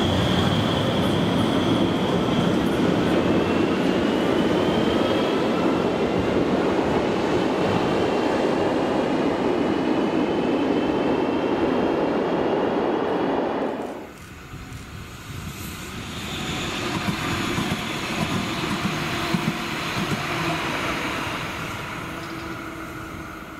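Cologne Stadtbahn tram pulling out of an underground station: a loud, echoing rumble of wheels and traction motors, with the motor whine rising in pitch as it accelerates. About fourteen seconds in, the sound cuts to a quieter tram on an open line, swelling as it passes and then fading as it moves away.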